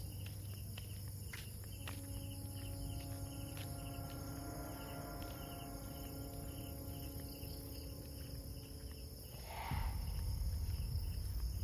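Night insects: crickets chirping in an even pulse of about three chirps a second over a steady high insect drone, with a few soft clicks.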